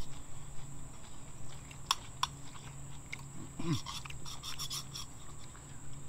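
Light clinks and clicks of a spoon and hands against bowls: two sharp clicks about two seconds in, then a run of quick clinks in the second half.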